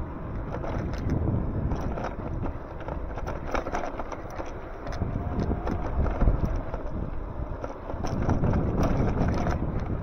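Wind buffeting the microphone during an e-bike ride, a fluctuating low rumble with scattered clicks and rattles throughout.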